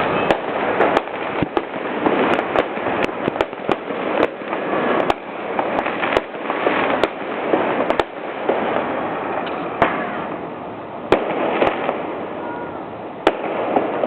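New Year fireworks display: irregular sharp pops and bangs, sometimes several close together, over a continuous crackling, rumbling haze of explosions.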